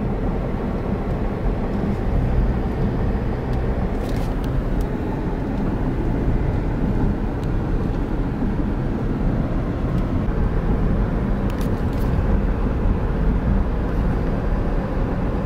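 Steady road and engine noise heard from inside a moving car's cabin, a low rumble without change.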